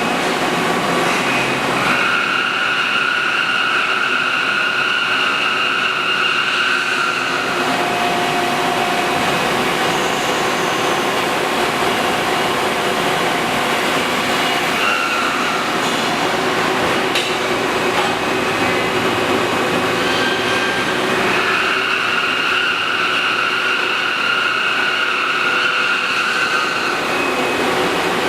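Citizen B-12 Swiss-type CNC lathe running under power: a steady machine hum and hiss, with a high whine that comes in for about five seconds twice, once near the start and once near the end.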